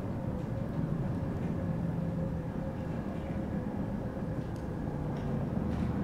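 Background ambience sound mix of a low, steady rumble, with a faint steady hum above it and a few faint ticks scattered through.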